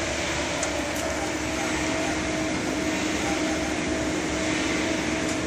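Steady mechanical whir of running fans and motors, with a steady humming tone that firms up about a second in and holds.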